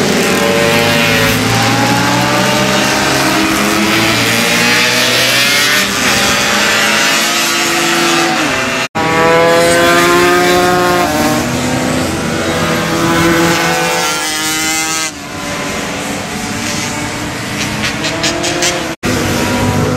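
Racing motorcycles passing at speed on a circuit. Several engine notes climb as the riders accelerate and change up, then fall away as the bikes go past. The sound breaks off for an instant twice.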